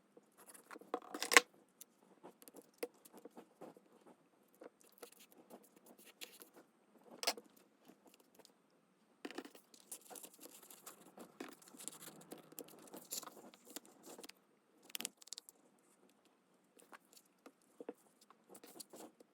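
Hands handling paper and small craft materials: scattered clicks and taps, with a sharper tap about a second in and a stretch of rustling and scratching in the middle.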